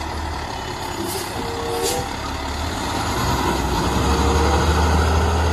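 Heavy roll-off container truck's diesel engine running with a deep steady rumble as it drives past, growing louder in the second half. Two short hisses of air come about one and two seconds in.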